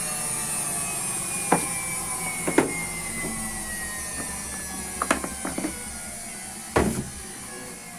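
Hotpoint Ariston ARSL100 washing machine winding down, its motor whine falling slowly in pitch and fading, with about five sharp knocks scattered through it.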